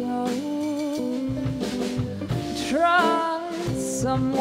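Live jazz band playing: a woman's voice sliding up into a long note with vibrato over guitar, bass and drum kit.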